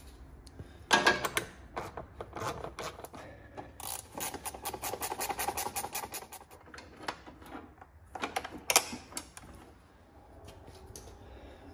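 Metal hand tools clinking and clattering during engine reassembly, with a fast, even run of clicks from about four to six seconds in and a couple of sharper knocks.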